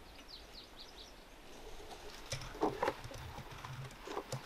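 Faint outdoor bird chirps, a quick run of small high calls in the first second, over quiet field ambience, then a few soft rustles about halfway through.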